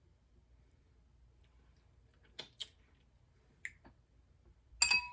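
A few soft clicks while eating, then near the end a sharp clink of an eating utensil against a dish that rings briefly.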